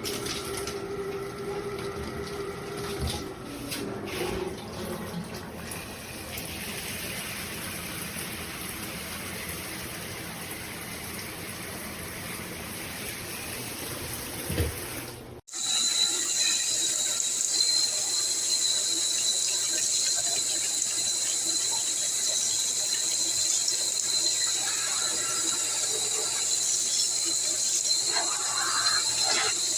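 Water spraying steadily from a handheld shower head. About halfway through the sound breaks off sharply and resumes louder and brighter, with a steady high whistle over the hiss.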